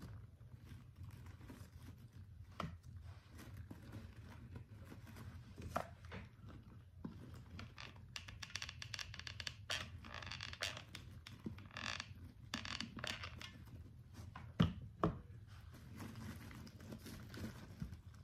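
Craft materials handled on a work surface: intermittent papery rustling, crinkling and scraping with scattered small clicks, and two sharp knocks near the end, over a faint low hum.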